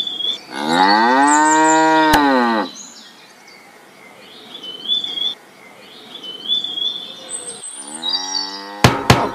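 A cow mooing: one long moo starting about half a second in and lasting about two seconds, rising and then falling in pitch, with another moo beginning near the end. Light bird chirps sound in between.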